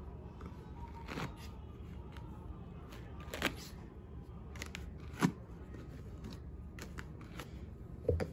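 Hands twisting and braiding hair, giving faint rustling and scattered short clicks every second or two, over a low steady background hum.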